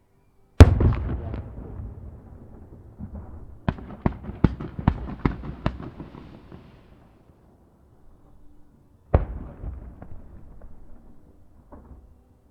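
Aerial firework shells bursting: one loud bang with a long fading rumble, then a quick run of about eight sharp reports over two seconds, and another bang with a fading tail near the end.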